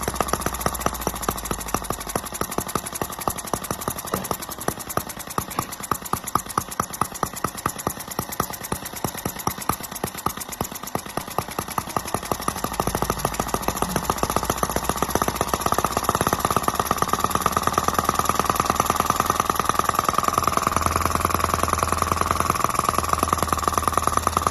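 Miniature model of the first Mercedes-Benz engine running, knocking out a rapid, even beat, with a whine that grows stronger about halfway through.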